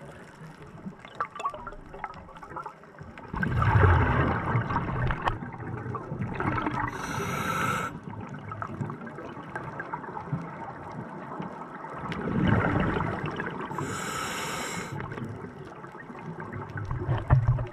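Scuba diver breathing through a regulator underwater. There are two long bubbling exhalations with a low rumble, about three and twelve seconds in, and each is followed by a short hiss from the regulator.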